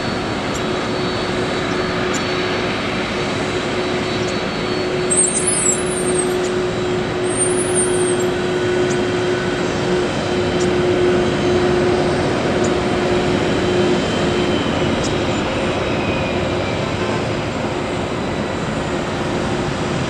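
Boeing 767 jet airliner taxiing, its engines running at low power as a steady rushing noise with a steady hum-like tone that fades out about two-thirds of the way through.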